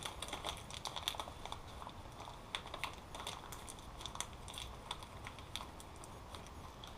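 Small clear plastic parts bag crinkling in the hands while a crimp-connector sleeve is picked out of it: a run of light, irregular clicks and crackles.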